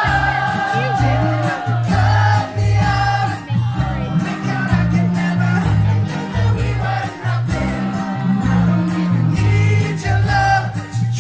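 Live band music: sung vocals over a repeating bass line and a steady percussive beat.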